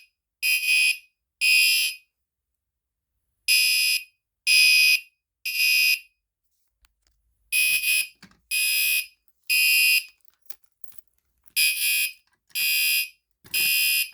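Gentex Commander 3 fire alarm horn sounding a code 3 (temporal-3) evacuation pattern: three short, loud blasts, a pause of about one and a half seconds, then three more, repeating.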